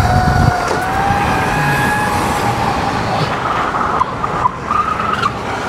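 Solar Eclipse 2.0 electric dirt bike riding along a street: a thin motor whine that rises slightly in pitch and fades after about two and a half seconds, over road and traffic noise. There is a heavy wind rumble on the microphone in the first half second, and a higher broken whine comes and goes near the end.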